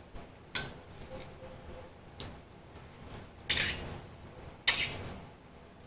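Ramen noodles slurped off chopsticks twice in a row, each a loud hissing slurp of about half a second. Before that, a few light clicks of the chopsticks against the bowl.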